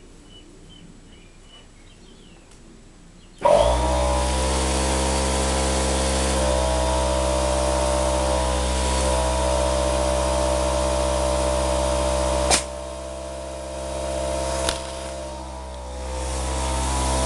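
A motor-driven machine runs with a steady hum, starting suddenly a few seconds in and stopping near the end. Two sharp cracks, typical of airgun shots, cut through it about two seconds apart past the middle.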